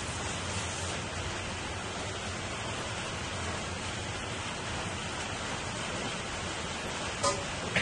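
Crab broth boiling hard in a wide pan, a steady bubbling hiss, with two sharp pops near the end.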